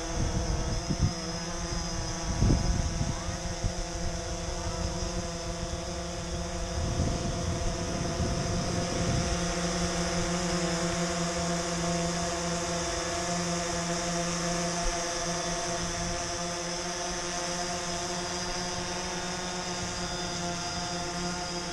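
DJI Phantom 3 Standard quadcopter hovering close by on its stock propellers: a steady, many-toned buzz from the four motors and props. Wind buffets the microphone in gusts during roughly the first half.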